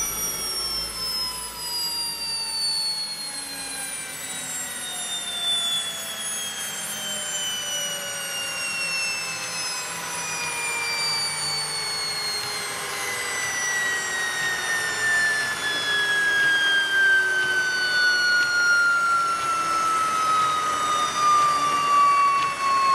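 AiResearch military gas-turbine auxiliary power unit spooling down after shutdown: a high turbine whine falling steadily in pitch, growing somewhat louder toward the end as it drops.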